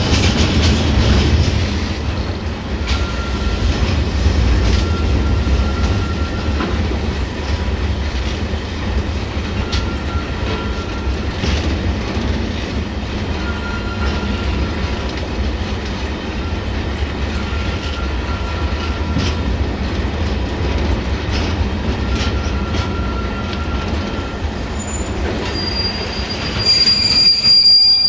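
Railway train rolling along the track with a steady low rumble. Short faint wheel squeals come every few seconds, and a louder, high-pitched wheel squeal follows near the end.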